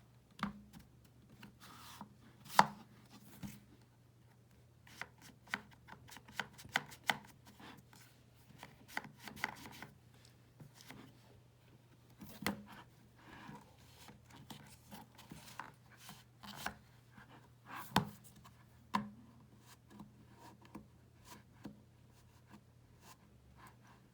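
Chunky push, pull and slide mechanisms and card pages of a children's novelty book being worked by hand: irregular sharp clicks and taps, the loudest about two and a half seconds in.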